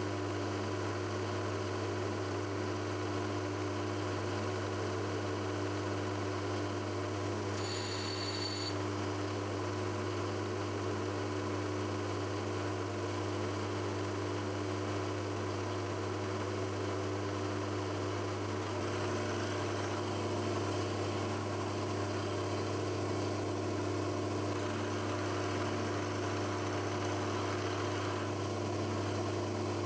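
Milling machine spindle running with a steady low hum. About 19 seconds in, a 10 mm end mill starts plunging through the brass bar, adding the hiss of cutting. A brief high tone sounds about 8 seconds in.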